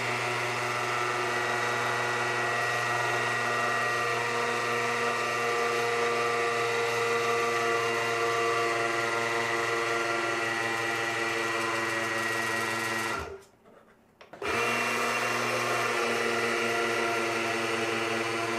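Baratza Vario burr grinder's motor and flat burrs running with a steady, many-toned hum while the calibration screw is turned to bring the new burrs toward touching. Burr contact shows as a lower pitch and a faint, high-pitched chirp. The grinder stops about 13 seconds in and starts again a second later.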